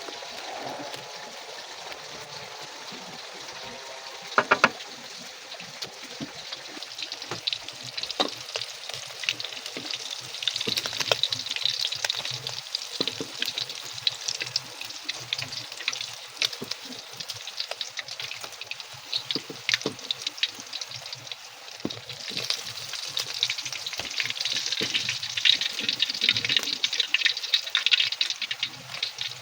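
Food sizzling and crackling as it fries in hot oil, with a couple of sharp knocks about four seconds in. The crackling grows busier about ten seconds in and again later on.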